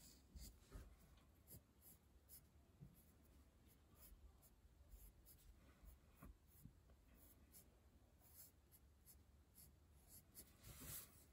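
Faint scratching of a graphite pencil drawing short, irregular strokes on paper.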